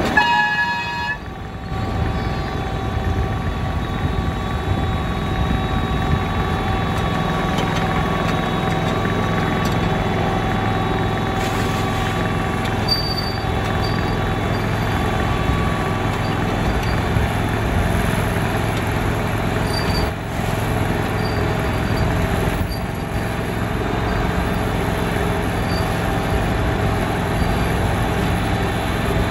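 Petrol engine of a 7.25-inch gauge miniature Victorian Railways T Class locomotive running steadily as it hauls the ride, with wheels rolling on the rails. A short horn toot right at the start.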